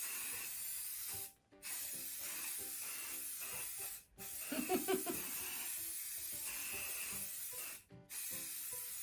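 Aerosol hairspray can spraying onto hair in long, steady hisses, broken by short pauses about a second and a half, four and eight seconds in as each new layer starts. Faint background music plays underneath.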